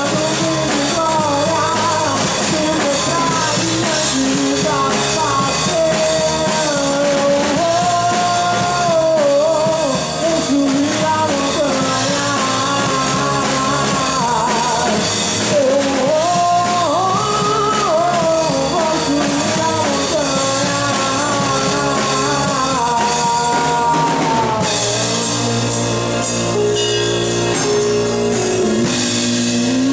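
Live band rehearsal of a gospel song: a man sings into a microphone over drum kit, electric bass and a backing track. Near the end the singing stops and the band plays on.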